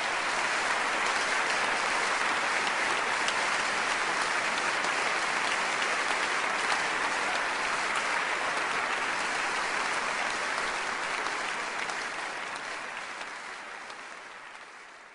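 Audience applauding, a steady dense clapping that fades away over the last three seconds or so.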